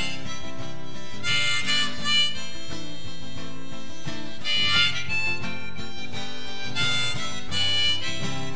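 Instrumental close of the song with no singing: a harmonica playing melodic phrases over guitar accompaniment.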